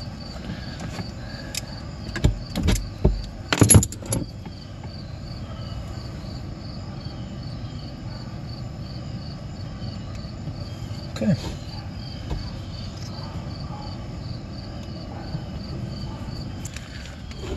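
Metal clicks and knocks from hand work with tools and parts at a snowmobile's oil injection pump, bunched about two to four seconds in. Steady cricket chirping, about two or three chirps a second, goes on underneath.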